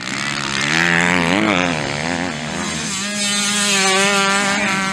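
Motocross bike engine revving up and down several times through a corner, then holding a steady high pitch under hard acceleration as it passes close.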